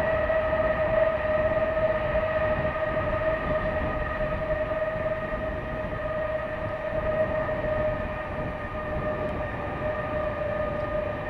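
Lockheed C-5A Galaxy's four General Electric TF39 turbofans screaming as the aircraft moves away on the ground: a loud, steady high whine with overtones over a low rumble, slowly fading and dropping slightly in pitch.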